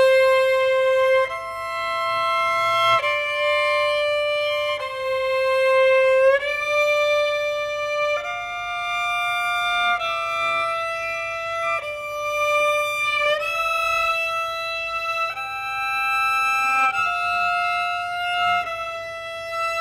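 Solo violin playing a double-stop exercise in C major, bowed pairs of notes moving through octaves, sixths and sevenths while climbing up the scale. Each double stop is held for about one to two seconds before the next.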